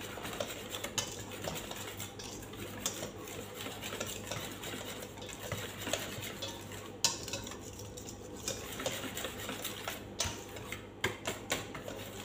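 A utensil stirring flour-and-water batter in a stainless steel bowl, scraping and clinking against the metal. There is a sharp tap about seven seconds in and a run of quick clicks near the end.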